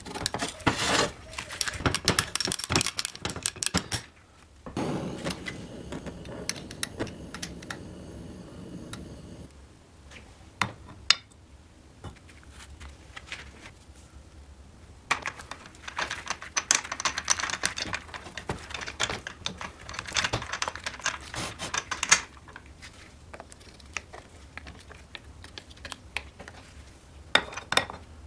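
Metal engine parts clicking and clinking as a Riga 12 crankshaft, with its connecting rod and piston, is handled and fitted into an aluminium crankcase half. The clicks come in bursts of quick taps with quieter pauses between them, and there is a few seconds of soft steady noise after the first burst.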